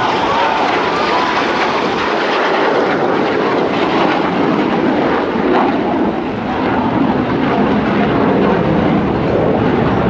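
Jet noise from a Blue Angels F/A-18 Hornet's twin turbofan engines as it flies overhead: a steady, loud rushing sound that eases briefly about six seconds in.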